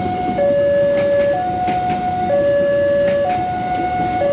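Railway level-crossing warning alarm sounding a two-tone hi-lo pattern, the high and low tones alternating about once a second, over a steady low rumble.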